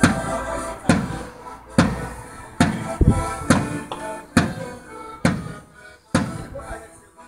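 Instrumental folk music: sustained chords over a drum struck about once a second, the beat growing weaker toward the end.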